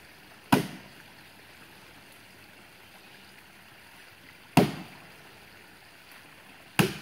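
Three axe strikes chopping into the trunk of a large dead tree, each a sharp chop with a short ringing tail: one about half a second in, one about four and a half seconds in, one near the end. The blows land on wood that is still solid at the core, so the axe is not biting deep.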